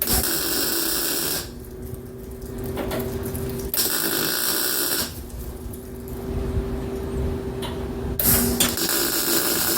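Electric arc welder laying tack welds on truck bed sheet metal: three bursts of crackling, buzzing arc, each a second and a half or so long, near the start, about four seconds in and near the end. A steady hum runs underneath.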